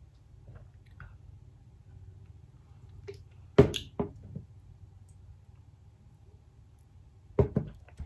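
Sharp knocks of a plastic shaker cup set down on a desk, loudest about three and a half seconds in, then two more quick knocks near the end, over a low steady hum.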